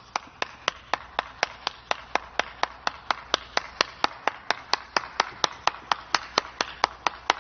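One person clapping their hands, a steady even run of single claps at about four a second.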